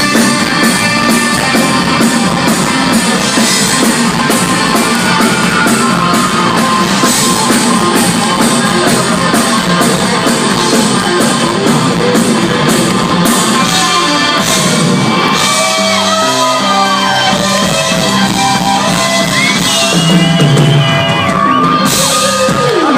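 Live rock band playing loudly, with guitar and a drum kit whose cymbals crash steadily through the song, and shouted vocals.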